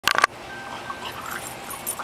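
A short loud sound right at the start, then a French bulldog chewing on a stick, fainter.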